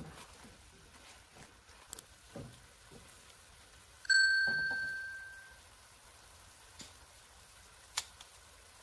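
A single bright bell-like ding about four seconds in, ringing out over about a second and a half: the notification-bell sound effect of a subscribe-button animation. A few faint clicks and soft scrapes of a spatula in the wok lie around it.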